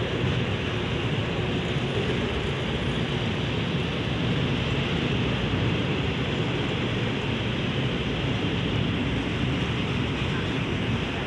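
Passenger coaches of a diesel-hauled train rolling steadily past a station platform: a continuous rumble of wheels on rail.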